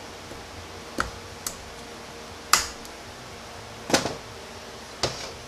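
Five sharp metallic clicks as a large tapered snap ring is worked into its groove in a 68RFE transmission input drum with snap-ring pliers, the ring snapping into place.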